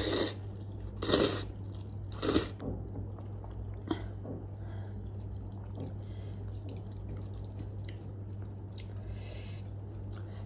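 Eating spicy instant noodles: three short slurps in the first couple of seconds, then quieter chewing, over a steady low hum.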